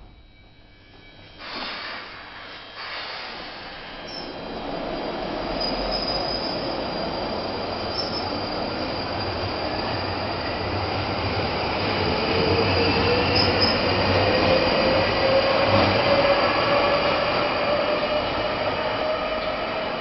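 London Underground Northern Line 1995 Stock train pulling out of the platform: a couple of knocks in the first few seconds, then wheel and rail noise building with a slowly rising whine as it picks up speed, loudest about three quarters of the way through.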